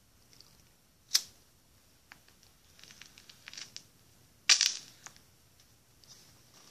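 A lighter being worked to light a smoke: a sharp click about a second in, soft crackling clicks in the middle, and a louder sharp click a little after four seconds.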